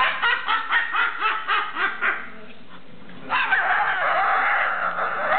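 Cockatoo laughing: a quick run of about eight 'ha' beats over two seconds. After a short pause it gives a long, held, harsh call.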